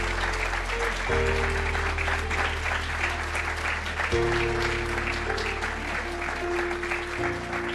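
Audience applauding over music with sustained low chords that change about every three seconds.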